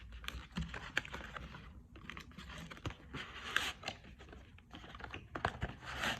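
Mouse retail box being opened and its cardboard and plastic packaging handled: scattered small clicks, taps and short rustles.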